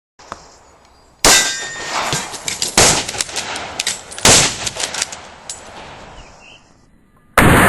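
Rifle shots with steel targets clanging: three sharp reports about a second and a half apart, then another near the end followed by a lingering metallic ring.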